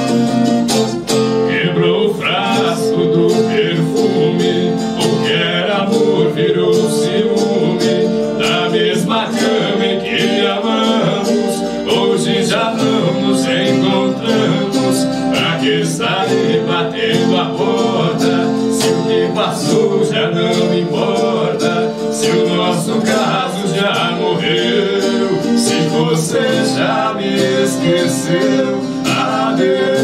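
Viola caipira, the Brazilian ten-string folk guitar, played with two men singing a Portuguese-language love song in duet over it; the voices come in about two seconds in.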